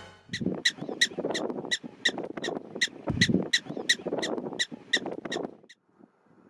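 Black-tailed prairie dog giving a run of short, high alarm barks, about four a second, that stop abruptly about five and a half seconds in.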